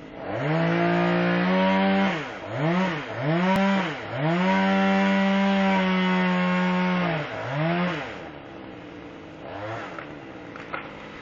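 Chainsaw engine revving in a series of throttle blips, its pitch swooping up and down several times, with one long run held at high revs for about three seconds. About eight seconds in it drops back to a low idle, with one brief blip near the end.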